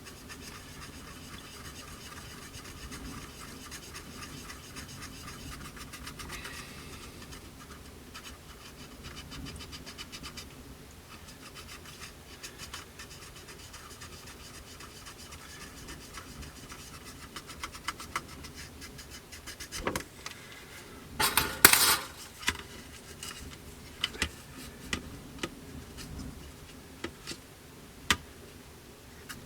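Soft, steady rubbing and scratching as Mr. Surfacer filler is worked off a plastic model kit's surface with isopropyl alcohol, with scattered small clicks. A louder short clatter comes about two-thirds of the way through.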